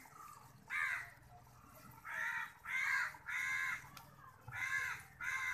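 A crow cawing repeatedly: about six short, harsh calls, one near the start, then four close together in the middle, and two more near the end.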